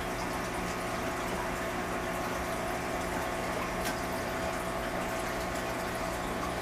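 Steady running and bubbling water in a fish tank over a low, steady equipment hum, with one faint click about four seconds in.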